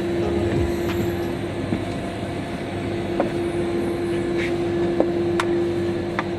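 A machine running steadily with a constant hum, with a few sharp clicks and knocks over it.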